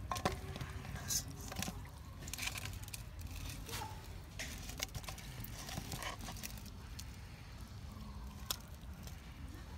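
Faint wet squishing and tearing as a frog is skinned and gutted by hand, with scattered small clicks over a steady low background rumble.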